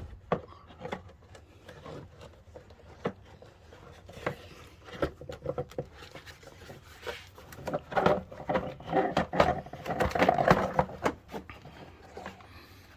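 Plastic airbox housing being wriggled and pulled free of the engine bay, with a string of clicks, knocks and scraping of plastic on plastic, busiest a little past the middle.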